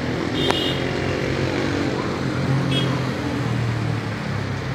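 Traffic on a wet street: vehicle and motorcycle engines running over a steady wash of road noise, with the voices of a crowd mixed in.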